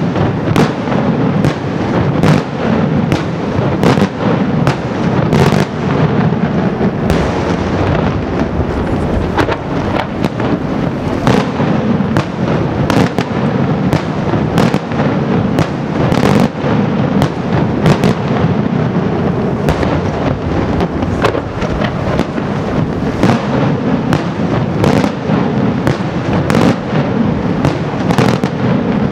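Daytime aerial fireworks: a dense, continuous barrage of bursting shells, with many sharp cracking reports over a steady rumble.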